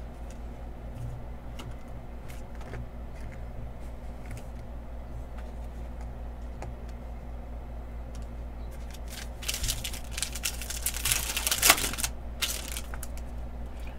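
Foil wrapper of a trading-card pack crinkling and tearing open, starting about nine and a half seconds in and lasting about three seconds. Before it there are a few faint ticks of cards being handled, over a steady low hum.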